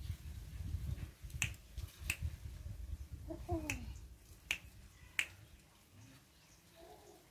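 Fingers snapping five sharp times at irregular intervals, as a cue to call a young spotted dove to the hand. A low rumble runs under the first half.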